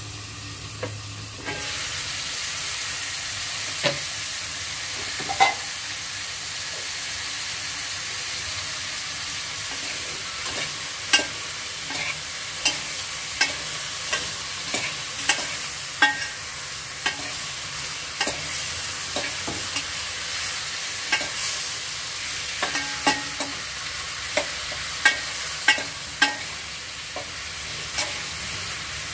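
Chicken pieces sizzling as they fry in their own rendered fat in a metal pot, the sizzle growing louder about a second and a half in as the lid comes off. From about ten seconds in, a metal spoon repeatedly clinks and scrapes against the pot as the chicken is stirred.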